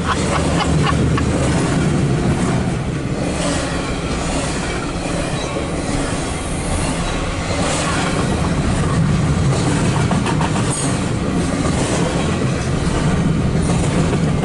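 Double-stack intermodal container cars of a freight train rolling past, a steady rumble of steel wheels on the rails with occasional clicks.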